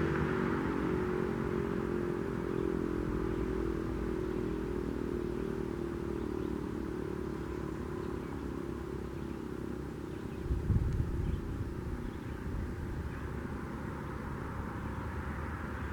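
Outdoor warning siren winding down: its tone sags slightly in pitch and fades away over the first half, leaving a steady outdoor background. A short low rumble about ten seconds in is the loudest moment.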